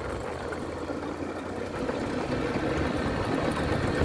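A 150 cc motorcycle's single-cylinder engine running while riding along, growing a little louder about halfway through.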